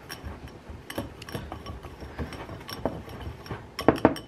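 Wire whisk tapping and clinking against a glass bowl while stirring powdered sugar and sweetened condensed milk into a thick icing. The taps come irregularly, with the loudest two close together near the end.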